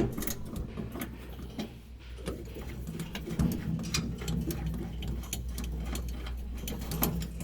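Irregular clicks, taps and rattles of hands working plastic and metal parts, working loose the washer drain pump motor's connection.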